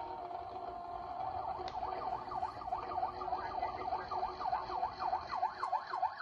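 Emergency-vehicle siren: a steady tone at first, then from about a second and a half in a fast rising-and-falling yelp, about three cycles a second.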